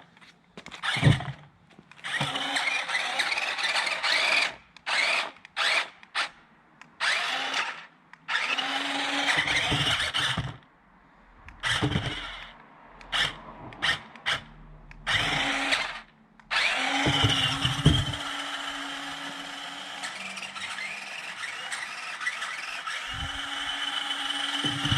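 Small electric drive motors of a JJRC Q137 8x8 skid-steer RC vehicle whining in repeated bursts as it is driven on and off, with a few brief knocks; the whine runs longer and steadier in the last few seconds.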